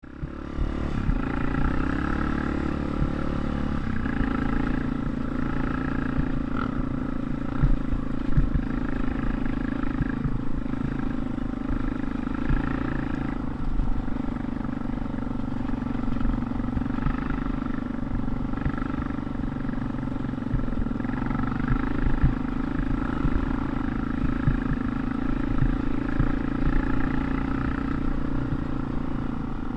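Dirt bike engine running at a fairly steady speed, its pitch shifting only slightly, with frequent short low thumps.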